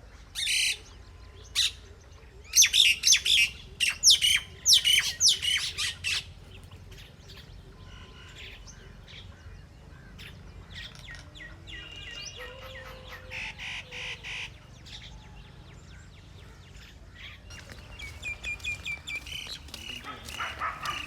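Birds calling outdoors: a burst of loud, sharp chirps in the first few seconds, then quieter, repeated call notes later on.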